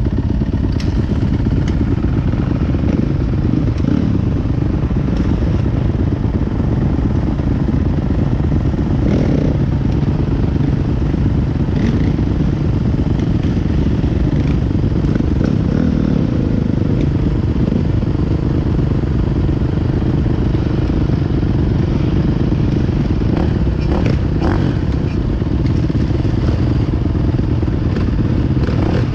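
Dirt bike engine running steadily at low revs close to the microphone, with other enduro motorcycles running nearby.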